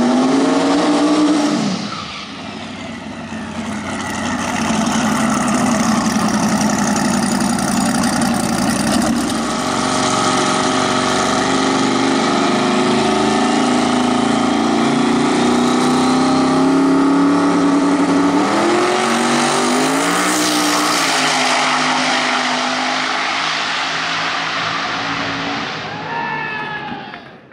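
Twin-turbo Mazda RX3 drag car's engine revving hard, first during a burnout and then running at high revs as it stages and makes a pass, its pitch climbing in steps about two-thirds of the way through. The sound fades and cuts off suddenly at the end.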